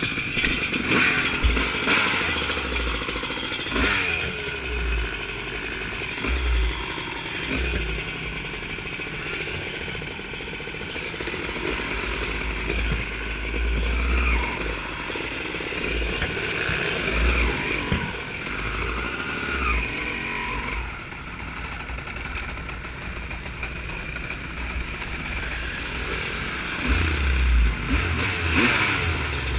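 Off-road motorcycle engine running as the bike is ridden, its revs rising and falling, with irregular low rumbles throughout.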